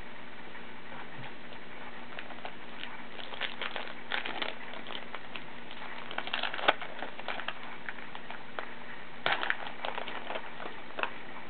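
Crinkling and crackling of a trading-card pack wrapper being torn open and handled, in scattered bursts of short crackles.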